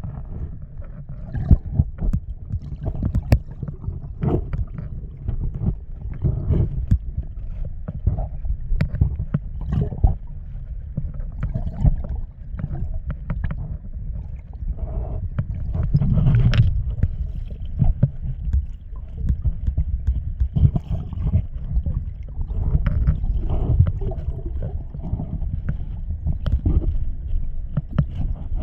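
A stream running and gurgling, under a heavy low rumble of wind buffeting the microphone, with frequent short sharp clicks.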